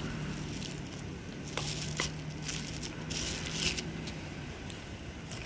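Quiet eating sounds: a few small clicks and crunches as food is eaten, over a low steady hum.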